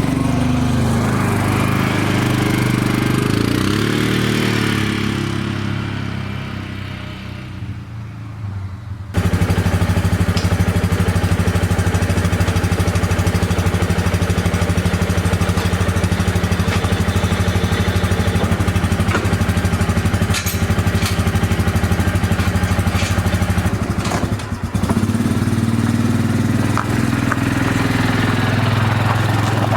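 A vehicle engine running. Its pitch rises and falls over the first several seconds, then after an abrupt cut about nine seconds in it runs steadily with a fast, even pulse.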